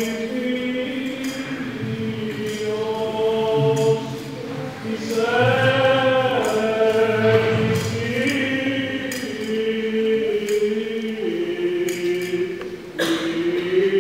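Byzantine liturgical chant: voices singing long held notes that step up and down in pitch over a steady low sustained note.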